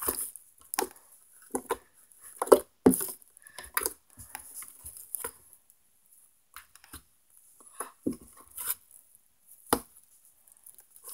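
A large lump of slime being mixed by hand, stretched, folded and slapped down on a table: irregular slaps and squishes, the loudest about two and a half to three seconds in.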